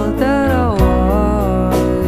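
Background pop song: a singing voice gliding over guitar, a steady bass line and drum hits.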